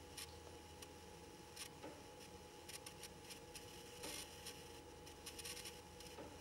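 Near silence: quiet room tone with a faint steady electrical hum and a few soft, brief rustles.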